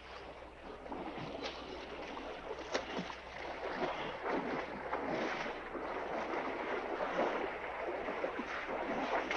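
River water splashing and sloshing as several people wade and swim through it, with irregular splashes throughout, growing louder over the first second.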